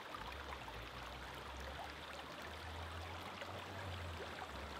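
Quiet, steady flow of a small river around a wading angler's legs, a soft even hiss of water with a low rumble underneath.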